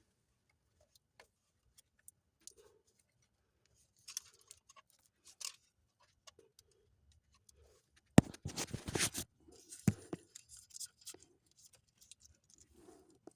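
Faint scattered clicks and rustles of hands working a rubber boot back over the positive battery cable terminal on the back of a newly fitted alternator, with a louder burst of rustling handling noise about eight seconds in and a sharp click just after.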